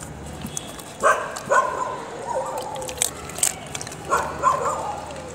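A dog whining in short high yelps, one cluster about a second in and another about four seconds in, with a few sharp clicks between them.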